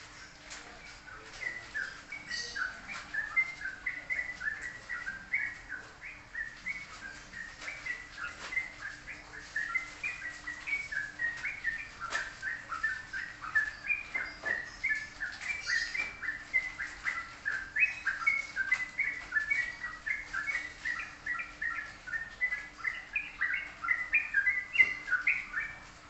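A songbird singing a long, fast, unbroken twittering song of short chirps.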